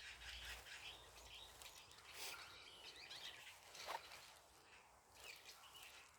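Faint chirps and calls of small songbirds, short notes scattered throughout, with one louder call sliding down in pitch about four seconds in.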